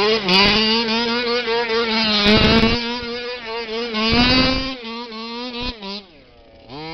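HPI Baja 5T RC truck's small petrol two-stroke engine held at high, steady revs at part throttle while the truck spins on grass, with a couple of brief surges. Near the end the revs drop away, then climb again.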